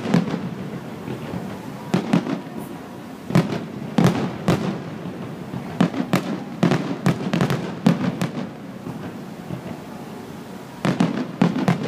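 Aerial fireworks shells bursting in quick, irregular bangs, several in a row at times, with a quieter lull about two-thirds through before a fresh cluster of bangs near the end.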